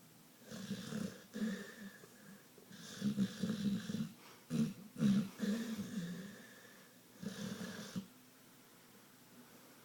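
Pit bull snoring heavily: a series of rough snores, each about a second long, with short pauses between, the last one ending about eight seconds in.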